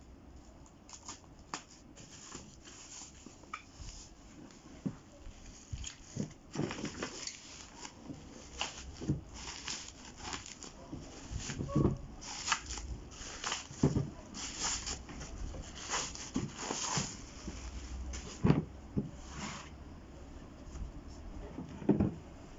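Handling noise: irregular clicks, rustling and light knocks, busier after about six seconds, with no motor or impact mechanism running.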